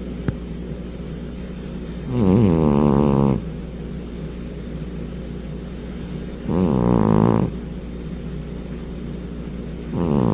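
Sleeping Persian-type cat snoring like a person: three loud, pitched snores about four seconds apart, each lasting about a second, over a steady low hum between breaths.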